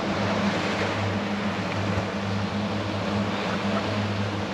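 Twin Mercury Verado 250 hp V8 outboard motors running with a steady low hum, over the rush of water in the wake and wind.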